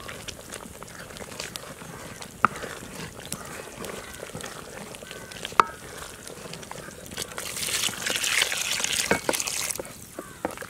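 Tamarind curry base simmering and bubbling in a large aluminium pot while a coconut-shell ladle stirs it, with a couple of sharp clicks. A louder stretch of hissing and stirring starts about seven seconds in and lasts a couple of seconds.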